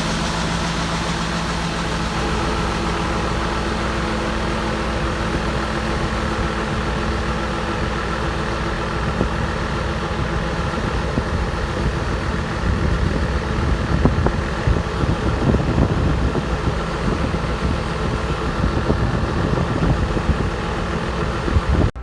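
Farm machinery running steadily, an engine with a constant hum, growing rougher and more uneven from about twelve seconds in.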